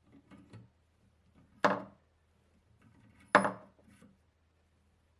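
Metal tools and parts clanking during cylinder head disassembly: two sharp metallic clanks about a second and a half apart, each ringing briefly, with lighter clinks before them.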